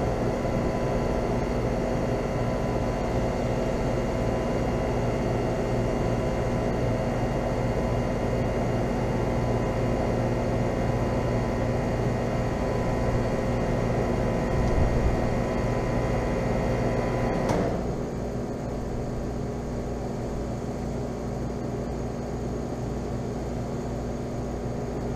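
Four-ton central air conditioner condensing unit running with a steady hum and fan rush; about 17 seconds in it shuts off with a click, the compressor hum stops and a quieter rush is left.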